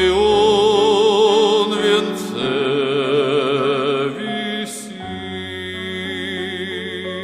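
Closing bars of a Christian song: long sung notes with wide vibrato over sustained keyboard chords, with the chord changing and the music growing softer after about four seconds.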